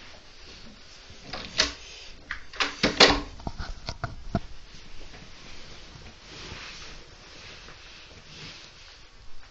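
A quick run of sharp clicks and knocks, starting about a second in and lasting around three seconds, then a soft hiss that swells twice near the end.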